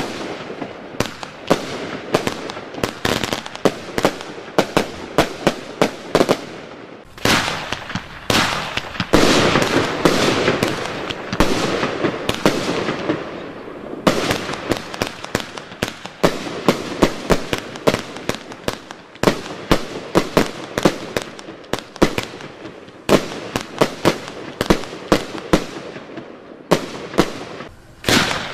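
Zena Mayhem firework cake firing: a rapid series of launch thumps and aerial bursts, about two to three shots a second. There is a denser run of overlapping bursts about a third of the way in, and a short lull near the end before the shots start again.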